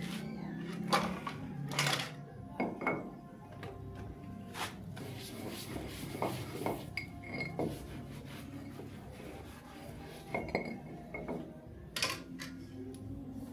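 Bowls and dishes clinking and knocking irregularly as they are handled, with a few short metallic rings.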